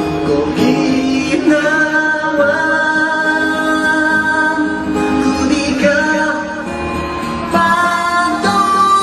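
A voice singing a slow song in long held notes, accompanied by acoustic guitar.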